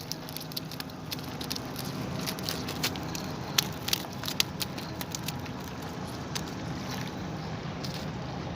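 A motor running steadily in the background, with irregular small clicks, ticks and light splashes over it.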